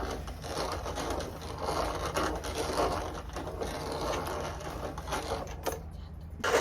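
Hand-operated grinder working, grinding dhal with a rough, continuous churning noise. It eases off briefly near the end, then starts again.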